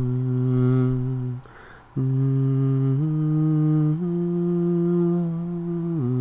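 A person humming long held notes that step up and down in pitch every second or so, with a quick breath in about a second and a half in.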